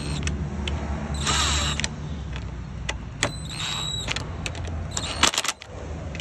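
Cordless driver spinning a socket on a bolt in two short whirring bursts, about a second in and again around three seconds in, over a steady low hum, with a few sharp clicks near the end.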